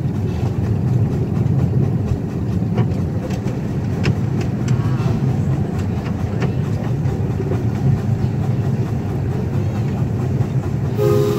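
Miniature live-steam train running on its track: a steady low rumble of the locomotive and cars, with scattered sharp clicks from the wheels over the rails. The locomotive's steam whistle starts to blow right at the end.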